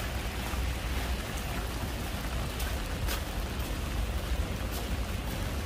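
Steady rain hiss with a low rumble underneath and a few faint drop ticks.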